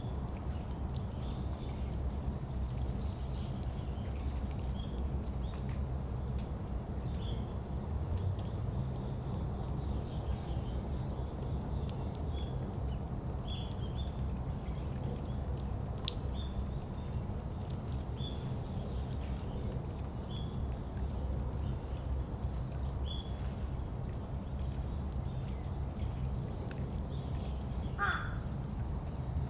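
Steady, high-pitched trilling of crickets or other singing insects. Soft, short bird call notes come every second or two, and one louder, harsher call sounds near the end, over a low rumble of background noise.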